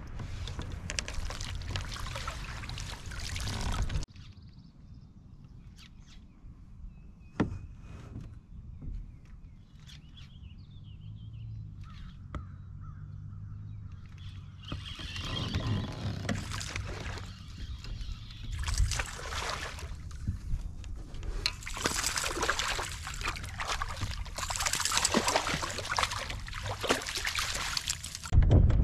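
Water sloshing and splashing against a fishing kayak while a hooked fish is played to the net. There are louder uneven surges at the start and through the second half, and a quieter middle stretch with a few sharp clicks.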